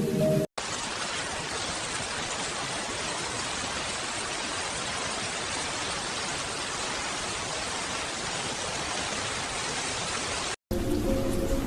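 Steady rain, an even hiss with no music over it, cutting in abruptly about half a second in and cutting off abruptly near the end. Soft music with sustained tones plays briefly before and after it.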